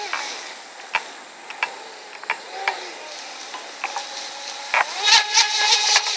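Brushless electric motor of a radio-controlled speedboat whining as the boat runs fast over the water. The pitch falls away at the start and climbs again from about two and a half seconds in, loudest near the end, with sharp clicks now and then.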